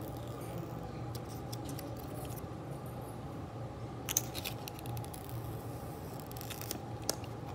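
Thin protective plastic film being handled and peeled off a phone's screen, crinkling and crackling in short spells: about a second in, around four seconds in and again near the end, over a steady low hum.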